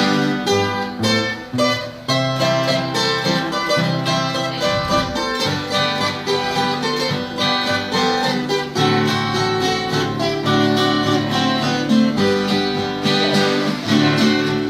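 Instrumental break in a Brazilian música caipira song: acoustic plucked-string instruments (guitar) playing a picked melody over a bass line, without singing.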